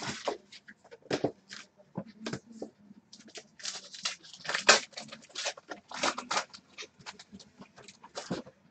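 Trading cards being handled: an irregular run of short, crisp flicks, slides and slaps as cards are thumbed through in the hand and dropped onto a wooden table.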